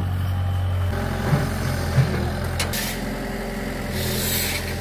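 Heavy diesel machinery engine running steadily with a deep hum, with two low thumps about one and two seconds in and a short click just after.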